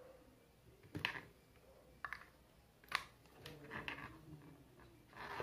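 Light clicks and taps of a small plastic USB hub and its cable being handled and set down on a desk beside a keyboard: single taps about a second in and near three seconds, with softer rattling in between and near the end.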